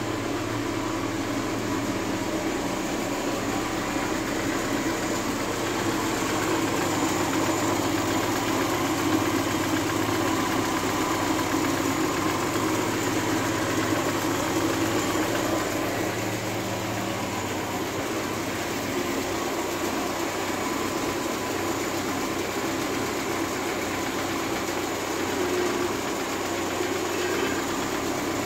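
Car engine idling steadily during engine diagnostics.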